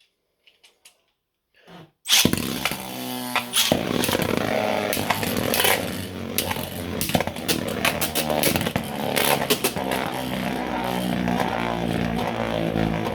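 3D-printed Beyblade spinning tops launched about two seconds in, then whirring in the stadium and clashing repeatedly with sharp knocks.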